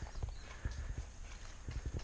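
Footsteps of a player walking over the ground: irregular low thuds, several a second.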